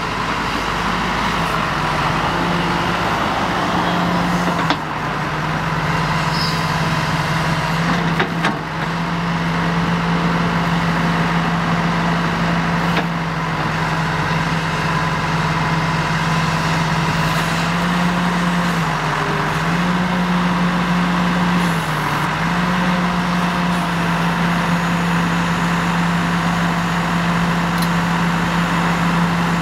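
A 1987 John Deere 70 excavator's four-cylinder diesel engine running steadily while the boom, arm and bucket are worked, its note dipping briefly several times, with a couple of short knocks early on.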